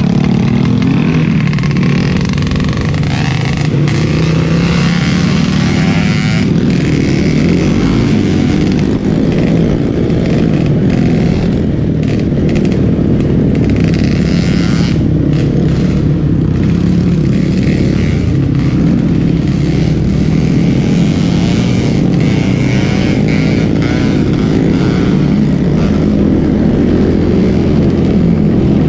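Trail motorcycle engine running, its note holding fairly steady with small rises and falls.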